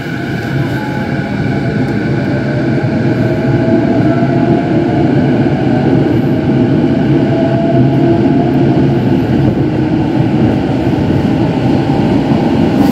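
Inside an E233-series electric commuter car, the train running with a steady rumble of wheels on rail and the whine of the traction motors; the noise builds over the first few seconds and then holds.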